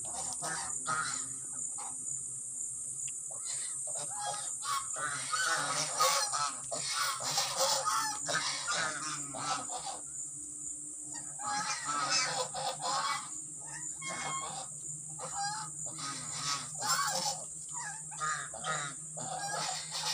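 A flock of domestic geese honking agitatedly in repeated overlapping bursts, the calls thickest a few seconds in and again just after a short lull around the middle.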